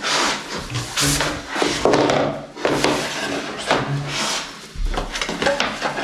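Laminate floor planks being handled and fitted into place: irregular wooden knocking and scraping.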